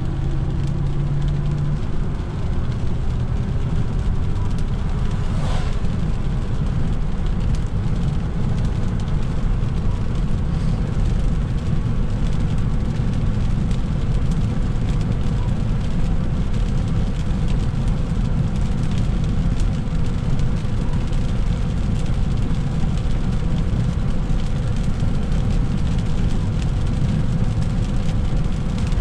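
Steady road noise inside a moving car's cabin on a rain-soaked highway: tyres hissing on the wet pavement over a low drone from the engine and road.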